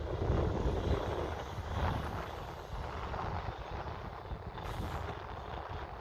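Snowplow dump truck running as it clears the snowy road, a low steady rumble that is loudest in the first two seconds.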